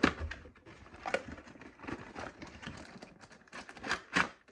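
A product box being opened and its packaging handled: scattered knocks, scrapes and crinkles, with a sharper knock at the start, another about a second in and a cluster near the end.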